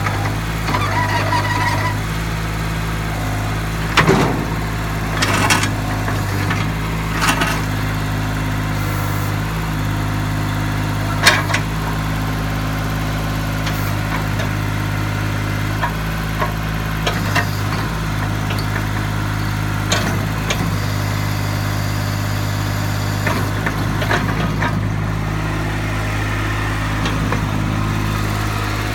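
Airman HM10S mini excavator's engine running steadily at a constant speed while the machine tracks and moves its boom. Short sharp knocks and clanks come now and then, the loudest about four, five and a half, seven and eleven seconds in.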